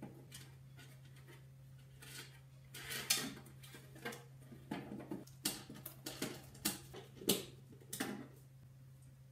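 Handling noise as a stereo receiver unit is fitted into the top of a painted steel ammo can: a run of taps, knocks and scrapes of metal and plastic, with rustling of wires, starting about two seconds in and stopping about a second before the end, over a steady low hum.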